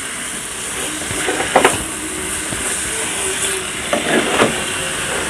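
Shredded cabbage with freshly added beaten egg sizzling in a hot frying pan, with a spatula scraping and turning it against the pan a few times.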